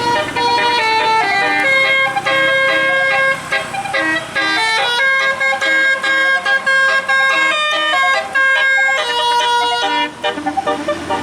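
Tour bus's basuri musical air horn playing a fast tune of short, steady notes that jump from pitch to pitch, stopping about ten seconds in.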